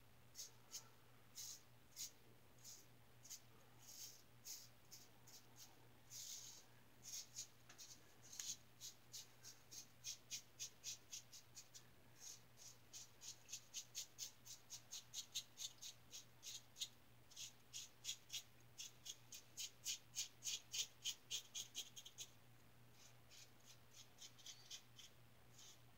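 Razor strokes: a 3D-printed injector razor with a Schick blade scraping stubble from lathered skin. The short, scratchy strokes come one every second or so at first, then quicken to two or three a second, with a short pause a little over three quarters through.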